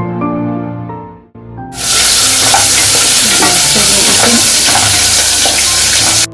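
Background music fades out, then about two seconds in, hot oil sizzles loudly in a pan while the contents are stirred, cutting off suddenly at the end. This is the frying stage at the start of a pulao, before the rice is added.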